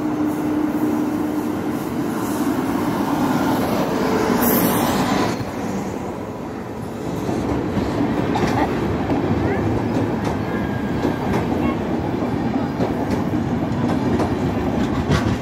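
Trains running through a station close to the platform, freight wagons and then passenger coaches: a steady rumble with the wheels clattering over rail joints, dipping briefly about six seconds in.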